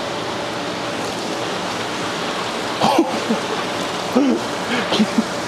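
Water running from hoses into and out of the fish acclimation tubs: a steady, even splashing rush. A few short voice sounds come through over it in the second half.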